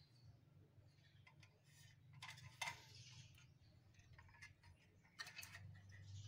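Faint handling noise: light clicks and taps from a hand-held sheet-metal toy tractor being turned over, the sharpest tap about two and a half seconds in, over a low steady hum.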